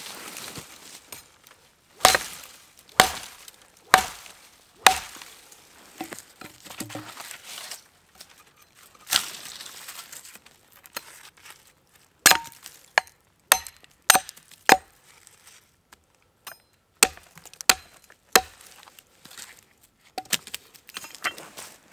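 Cold Steel Viking Battle Axe chopping through a thin branch laid across a log, each blow a sharp chop into the wood. Four blows come about a second apart, then after a pause two quicker runs of five and three.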